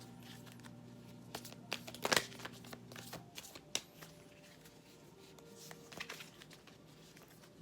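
Oracle cards being shuffled and handled in the hands, a run of scattered soft slaps and rustles, loudest about two seconds in, as a card is drawn from the deck.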